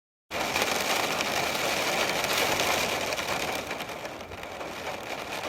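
Heavy rain and wind on a camper van, heard from inside: a steady hiss that starts abruptly a moment in.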